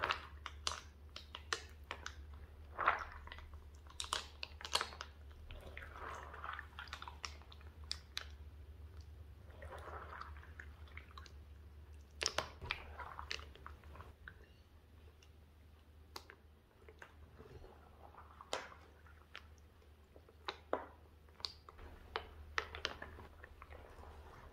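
Thick slime full of M&M's candies being squeezed, stretched and kneaded by hand: irregular sticky squelches, pops and clicks.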